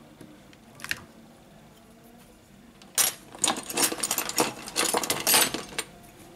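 Hands handling a smartphone display on a work mat: a single click about a second in, then about three seconds of rapid scraping, rubbing and clicking.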